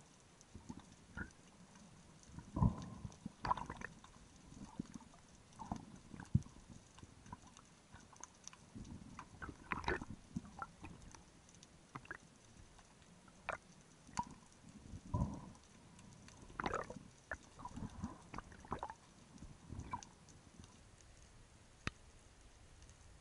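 Underwater sounds picked up by a diver's camera: scattered sharp clicks and short, low gurgling knocks at irregular intervals, a few of them louder than the rest.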